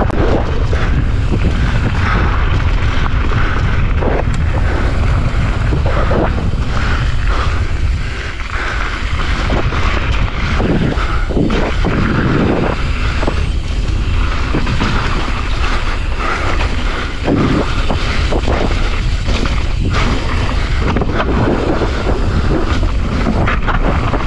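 Wind buffeting a handlebar-mounted action-camera microphone during a fast mountain-bike descent, over the rolling noise of knobby tyres on dirt and gravel. Frequent knocks and rattles come from the bike and suspension hitting bumps and ruts.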